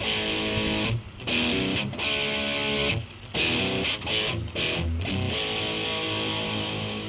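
Guitar music: strummed chords played in short stabs with brief breaks between them, then a held chord that rings on and slowly fades over the last couple of seconds.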